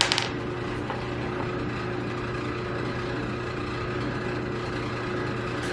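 Steady machine hum in a workshop, even in level, with a short click right at the start.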